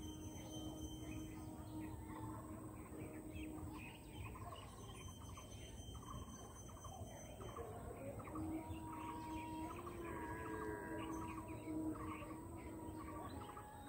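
Birds chirping and calling in short quick notes over a low steady outdoor background hum.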